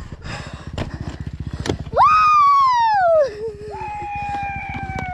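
A person lets out two long screams: a loud one about halfway in that falls in pitch, then a lower, held one. Underneath, a dirt bike's engine idles with a steady fast pulse while the bike lies dropped on its side.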